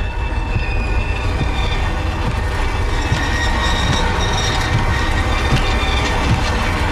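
Horror sound-design drone: a deep, steady rumble under shrill, metallic squealing tones and scattered clicks, growing a little denser about two seconds in.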